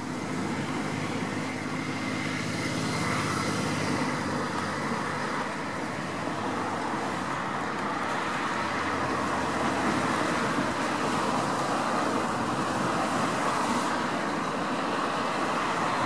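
Steady outdoor background of distant motor traffic, with a low engine hum in the first few seconds, growing a little louder across the stretch.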